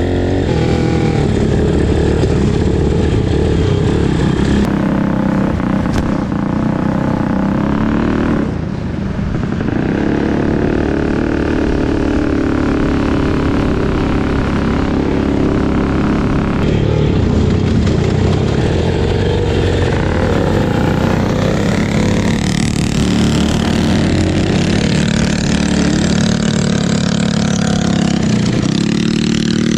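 Small single-cylinder four-stroke mini bike engines running under throttle, the revs rising and falling, with a brief let-off about eight seconds in.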